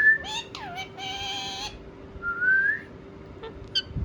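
Indian ringneck parrot whistling rising notes, with two short harsh, buzzy calls in between and a few faint clicks near the end.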